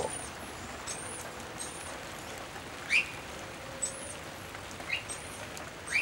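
Noisy miner alarm calls in steady rain: a short, high, thin note repeated about once a second. Three louder, sharper rising calls come about halfway through, near the end, and right at the end.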